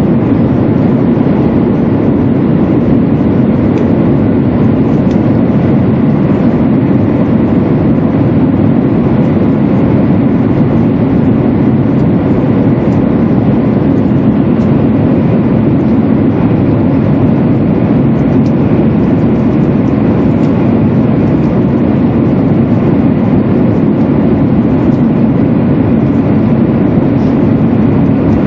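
Cabin running noise of a 200 series Shinkansen car: a steady, loud low rumble of wheels and air that never changes, with faint light ticks and rattles over it.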